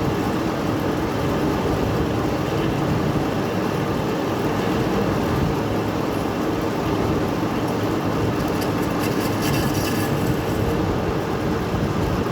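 Metal lathe running under power, its motor and gearing humming steadily as the tool turns the workpiece. A scratchy higher noise from the cut comes in for about two seconds near the end.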